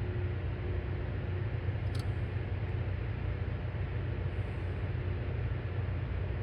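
Heavy railway diesel engine idling: a steady low rumble that holds even throughout, with a faint click about two seconds in.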